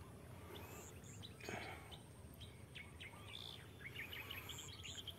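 Faint chirping of small birds, growing busier in the second half, over a low steady background hiss, with a brief soft burst of noise about a second and a half in.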